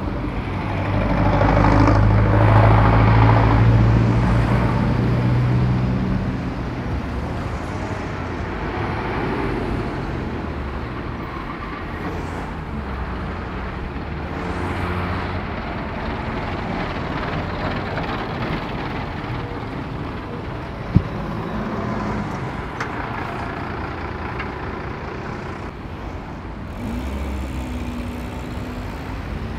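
Road traffic passing close by, cars and diesel lorries, a continuous engine and tyre rumble. One heavy vehicle's engine is loud for a few seconds near the start, and there is a single sharp click about two-thirds of the way through.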